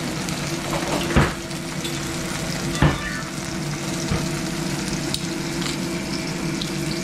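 Tofu slices shallow-frying in oil in a stainless steel pan, a steady sizzle. Two sharp knocks come about a second in and near three seconds, with a lighter one a little after.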